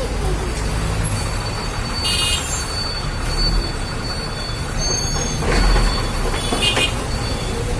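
Steady rumble of road traffic, with a vehicle horn tooting briefly about two seconds in and again near the end.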